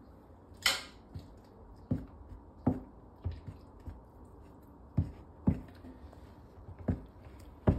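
A metal spoon knocking and scraping against a glass measuring jug while a batter-like liquid is stirred and tipped out: about eight irregular clinks, the loudest with a short scrape about a second in.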